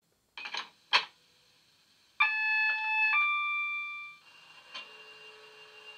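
Digital sound of a Class 70 diesel locomotive played by a model's DCC sound decoder through small speakers. A few clicks, then the two-tone horn sounds for about two seconds, moving from a lower note to a higher one, followed by another click and a faint steady hum.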